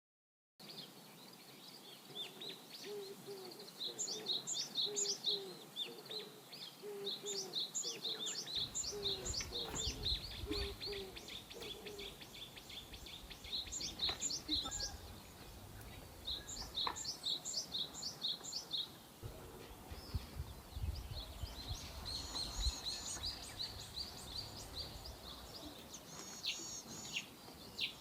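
Small birds chirping in rapid repeated series of high notes, with a lower run of short repeated calls in the first half. A low rumble sits beneath from about eight seconds in.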